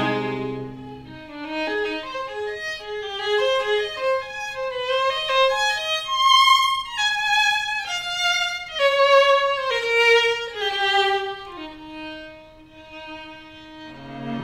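Violin playing a running melody nearly alone, climbing to high notes and then stepping back down. The full string trio with cello sounds at the start, breaks off about a second in, and comes back in near the end.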